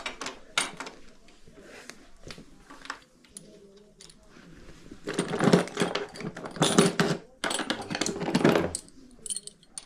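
Metal tools and bike parts clicking and clinking, with three louder stretches of rattling clatter in the second half.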